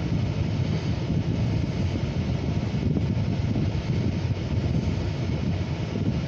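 Steady low vehicle rumble, heard from inside a car.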